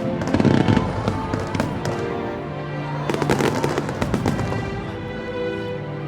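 Aerial fireworks shells bursting and crackling in two clusters, about half a second in and again about three seconds in, over steady music.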